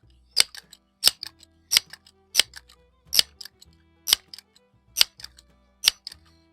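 Crosman 1322 multi-pump air rifle being pumped up: about nine sharp clacks of the pump lever, a little over one a second, slowing slightly as each stroke gets harder, over low background music.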